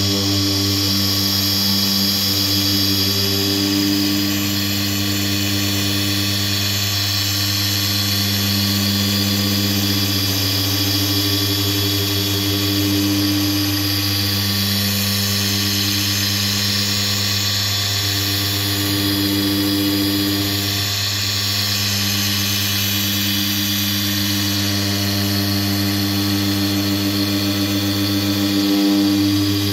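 Ryobi cordless dual-action polisher running continuously while polishing car paint: a steady motor hum that swells and eases slightly every few seconds.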